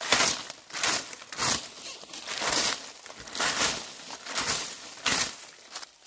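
Dry leaves being swept with a broom: a crackling, rustling swish about once a second, each stroke a short rush of sound.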